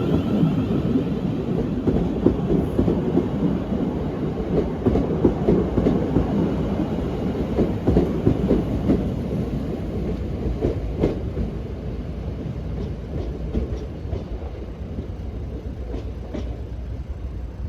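Class 450 electric multiple unit departing and running along the platform, its wheels clicking over the rail joints now and then. The sound slowly fades as the train draws away.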